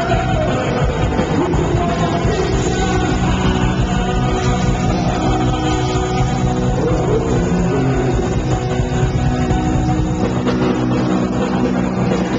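A punk rock band playing live: loud electric guitars, bass and drums with a singer over them, played without a break.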